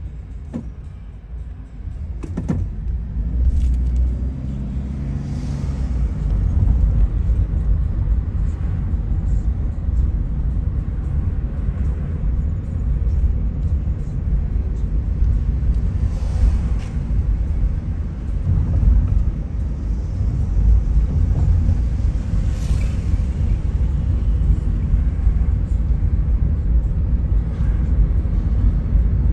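Car engine and tyre noise heard from inside the cabin: a steady low rumble that grows louder a couple of seconds in as the car pulls away from a stop and settles into cruising at town speed. Two sharp clicks near the start.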